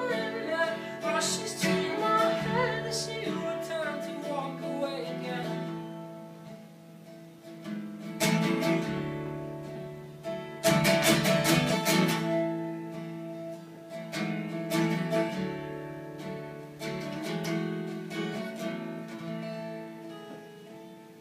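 Solo acoustic guitar playing a song's closing chords, strummed now and then and left to ring, fading away near the end.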